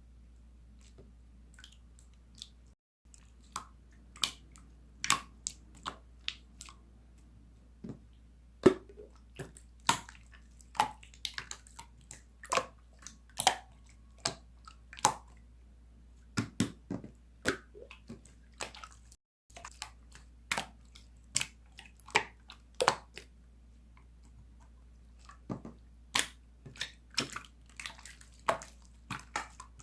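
Slime being squeezed and pressed by hand, making irregular sticky pops and clicks.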